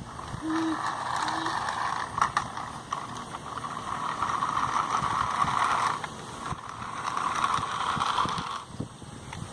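Lego remote-control car motors and plastic gears running with a gritty, rattling buzz. There are two runs, the first lasting about six seconds, then a short pause, then a second run of about two seconds. A few sharp clicks occur along the way.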